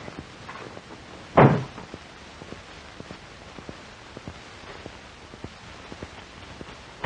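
A door shutting with a single thud about a second and a half in, then the steady hiss and faint scattered crackle of an old film soundtrack.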